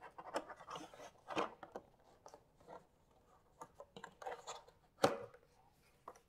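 Cardboard statue box being handled and opened by hand: irregular scrapes, crinkles and small crunching clicks, with one sharper knock about five seconds in.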